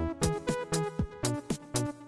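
Background music: an instrumental electronic pop passage with a steady beat and bass line.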